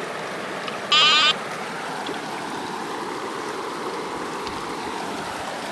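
A metal detector gives one short, loud warbling tone about a second in, over the steady rush of flowing river water.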